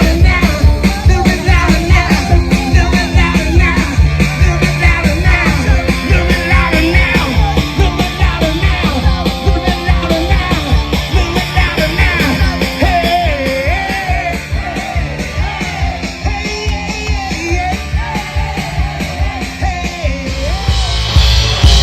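Live classic rock band playing: a singer's voice over a full band, with a steady, fast drum beat.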